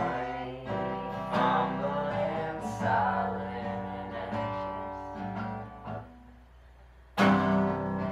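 Acoustic guitar strummed, chords struck about every second and a half and left to ring. About six seconds in a chord dies away to near quiet, then a loud strum comes in just after seven seconds.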